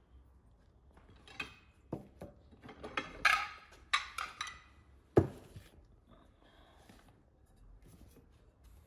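Plates clinking and clattering as they are handled and set down on a table: a quick run of clatters with a sharp knock about five seconds in.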